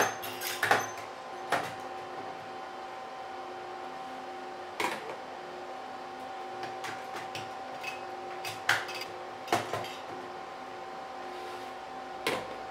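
Screwdriver and metal heat-sink parts clicking and knocking as server CPU heat sinks are unscrewed and lifted out: about half a dozen sharp knocks spread out, with a steady whine from running equipment underneath.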